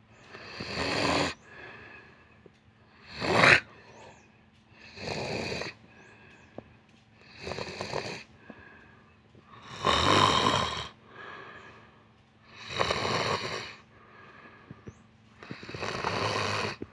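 Snoring during sleep, with one snore about every two to two and a half seconds, seven in all. The snore about three and a half seconds in is the sharpest and loudest.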